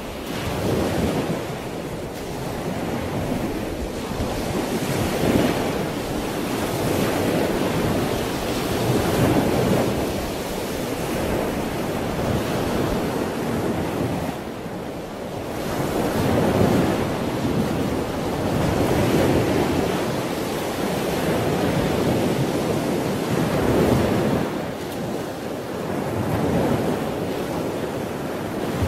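Ocean surf: waves breaking and washing in, the rush of water swelling and fading every few seconds.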